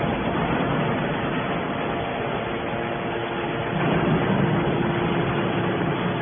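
Fully automatic hydraulic baler running: steady machine noise with a faint hum, swelling briefly about four seconds in.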